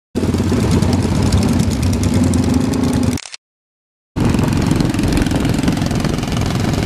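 Motorcycle engines running and road noise while riding in a group, heard as two clips with a gap of dead silence between them, from about three seconds in to about four seconds in.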